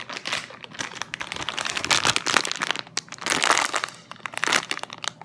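Clear plastic wrapper crinkling as hands squeeze and turn a jumbo strawberry squishy inside it, in irregular crackly bursts that are heaviest in the middle and near the end.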